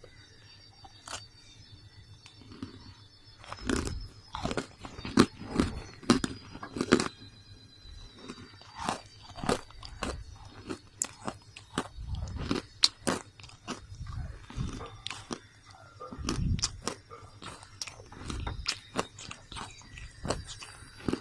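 A person biting into and chewing roasted gray slate, with many sharp, irregular crunches.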